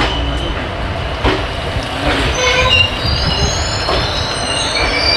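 Passenger train coaches running slowly over the rails, with a few sharp knocks from the wheels over joints. From about two seconds in, a high, many-toned squeal of wheels and brakes builds as the train slows into the station.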